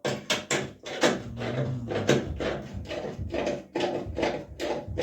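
A quick series of repeated scraping or rubbing strokes on a hard surface, roughly four a second, as in hand work during a repair.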